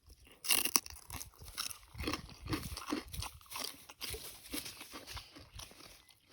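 Close crunching and chewing of crispy food in the mouth: irregular crunches, the loudest about half a second in.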